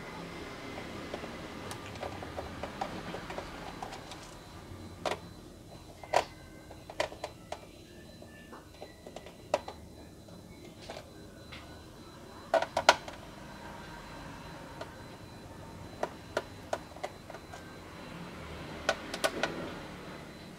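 Scattered sharp clicks and taps from a screwdriver taking out the bottom-case screws of an ASUS X454Y laptop, some single and some in quick clusters, the loudest a little past the middle and near the end.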